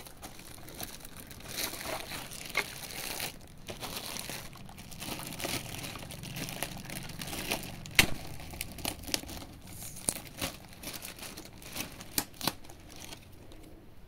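Clear plastic wrapping crinkling and rustling as it is handled around a digital bathroom scale, full of small crackles, with one sharp click about eight seconds in. The crinkling dies down near the end.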